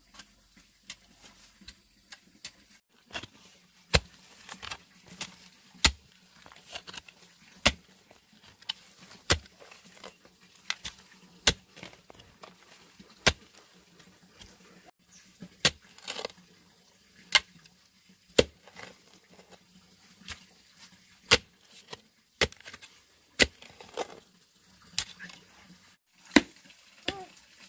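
Repeated chopping strokes, sharp and evenly paced at about one every one to two seconds. Near the end there is a short wavering high call.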